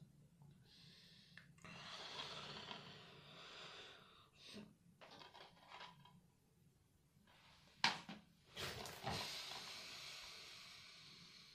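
Faint handling noise of plastic DVD cases: soft rubbing and scraping, then two sharp clacks a little under eight and about nine seconds in as one case is put down and another picked up.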